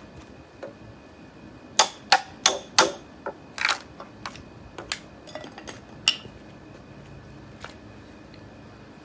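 Hammer knocking on wood: four sharp strikes in quick succession about two seconds in, then a few scattered, weaker knocks.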